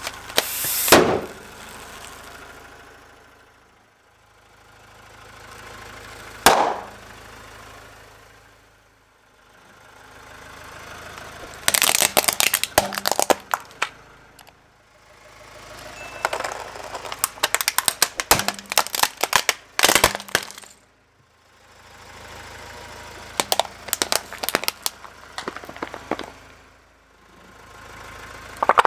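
A car tyre crushing objects one after another: a foil balloon bursting about a second in, then a sharp snap and several long runs of cracking and crunching plastic. A steady car engine hum swells and fades between the crushes, and there is another burst near the end.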